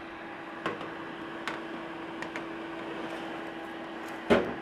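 Metal baking tray sliding into the rack of a running countertop air fryer oven: a few light scrapes and clicks, then one loud clunk near the end as it is pushed home. Under it runs the steady hum of the oven's fan.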